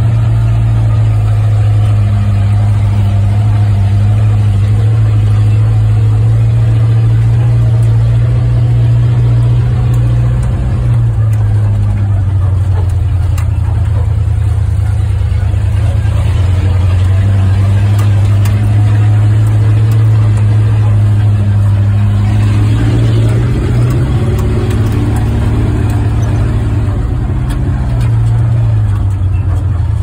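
1961 Ford F-250 pickup's engine running as the truck drives along, heard from inside the cab: a steady low hum whose pitch shifts down and up a few times.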